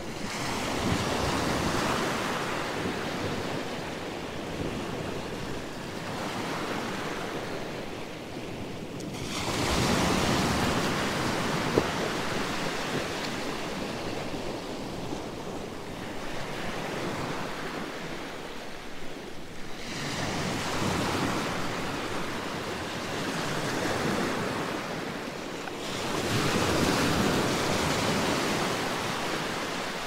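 Gentle sea waves breaking around rocks and washing up a sand-and-pebble shore. There are four swells of surf, each rising and fading back into the hiss of the water, the loudest about ten seconds in and near the end.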